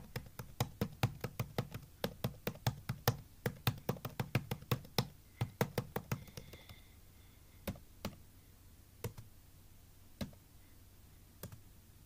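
Typing on a tablet's on-screen keyboard: a quick run of sharp clicks, about five a second, for the first half, then a few single taps spaced a second or more apart.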